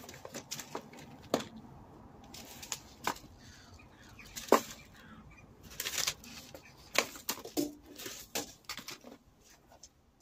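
Paper seed packets rustling and flicking as a gloved hand leafs through them in a plastic storage box, in irregular crisp crackles.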